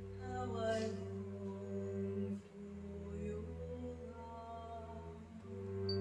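A woman singing slow, long-held notes, sliding up into the line about half a second in, over a double bass bowed in sustained low notes.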